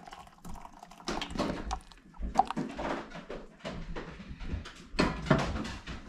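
Dogs playing on the floor upstairs, heard through the ceiling: irregular thumps and scuffles, with the loudest thumps about two and five seconds in.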